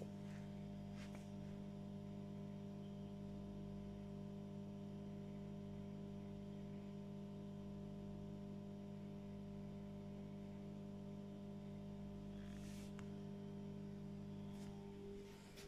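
Steady electrical hum from the magnetic ballast (choke) of a 1973 Mesko OURW 1250 street lamp running its sodium or mercury-vapour lamp, with a few faint ticks.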